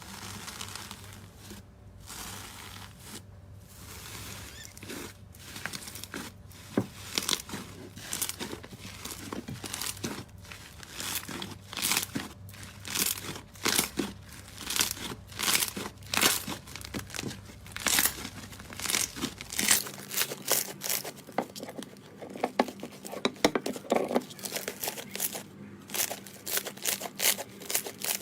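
Slime being kneaded and pressed by hand, making many sticky crackling and popping clicks that grow denser and louder after the first few seconds.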